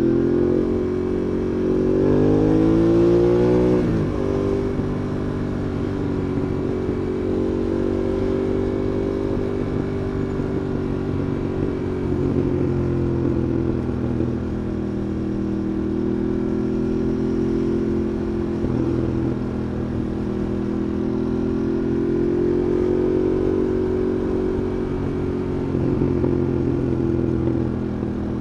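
Ducati Monster 821's Testastretta L-twin engine running under way, heard from the rider's position: it revs up over the first few seconds, its pitch drops sharply about four seconds in, then it runs at a steady cruise with small rises and falls in pitch.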